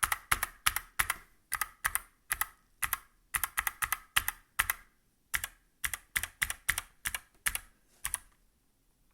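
Keys of a Motospeed CK61 mechanical keyboard with clicky Kailh BOX White switches, fitted without O-rings, pressed over and over, about two or three presses a second. Each press gives a sharp click as the keycap's plastic bottoms out hard on the switch's plastic. The pressing stops about a second before the end.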